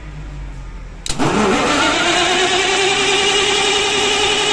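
Perkins diesel engine starting: a sharp click about a second in as the starter engages, then the engine fires and quickly rises in pitch before settling into steady running. The start shows the newly installed starter relay is wired correctly.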